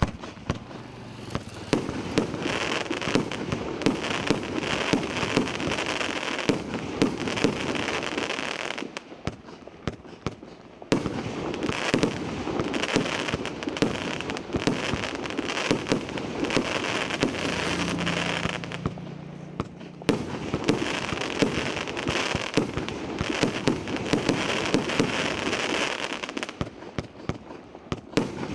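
SkyFire 'Gandalf' consumer firework (SUF10012) going off with dense crackling and sharp popping over a hissing burn. It dies down briefly three times and then picks up again.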